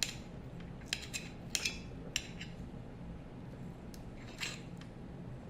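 Eating sounds: scattered light clicks and clinks, about ten in all, over a faint steady hum.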